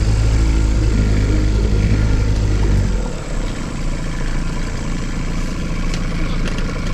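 Boat outboard motor running under throttle, then throttled back about three seconds in and left running at a lower idle.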